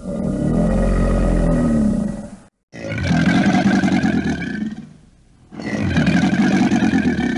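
Caiman bellowing: three long, low calls of two to three seconds each, with short gaps between them.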